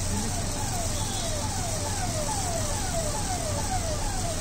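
Steady street traffic rumble, with a short falling electronic-sounding chirp repeated about three times a second over it.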